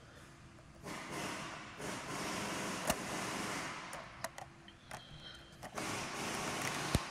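Rustling and rubbing as a hand handles the plastic film and translucent fuse cover inside an electronics housing, in stretches of a second or two, with two sharp clicks, about three seconds in and near the end.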